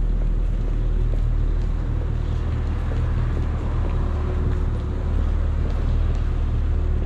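City street ambience: a steady low rumble of road traffic under a wash of general street noise.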